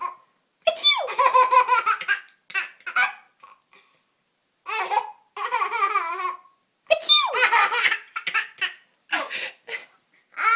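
A baby laughing hard in repeated bursts of belly laughter, broken by short pauses. Twice a burst opens with a high squeal that falls in pitch.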